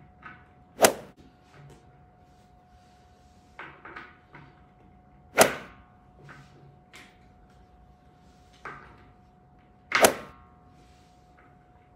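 Caster wheels being pushed into a plastic five-star chair base, each stem snapping into its socket with a sharp click: three loud snaps about four to five seconds apart, with smaller knocks between. A faint steady hum runs underneath.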